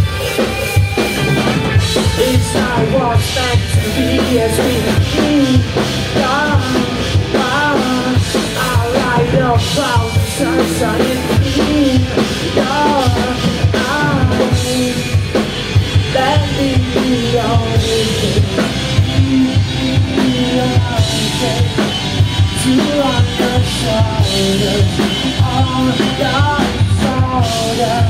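Live band playing a song: a drum kit keeping a steady beat with bass under a melody line that bends and wavers in pitch.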